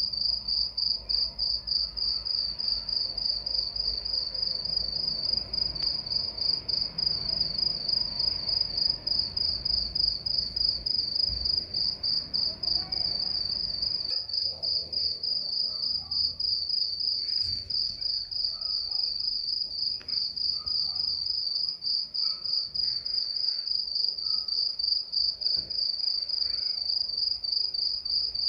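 Cricket chirping at night in an even, unbroken stream of rapid high-pitched pulses.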